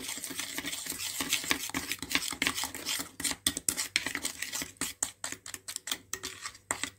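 Stirring a thick homemade paint paste of powder, glue and water in a steel bowl, the stirrer scraping and clicking against the bowl's sides in rapid, irregular strokes.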